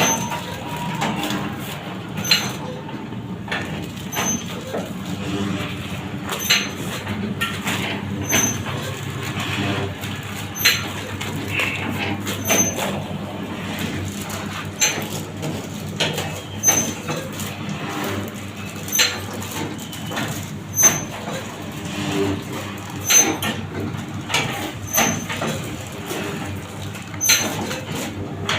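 Six-hole baglog press running: a steady motor hum with a sharp knock and clatter about every two seconds as each stroke packs mushroom substrate into the plastic bags.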